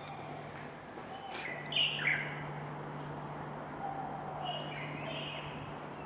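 Small birds chirping in short calls, a pair about a second and a half in and another pair near five seconds, over a faint steady low hum.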